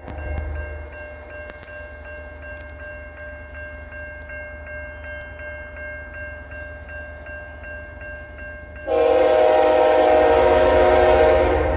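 Railroad crossing signal bell ringing rapidly and steadily as the gates come down. About nine seconds in, an approaching locomotive sounds its multi-chime air horn in one loud blast of about three seconds, the loudest sound here.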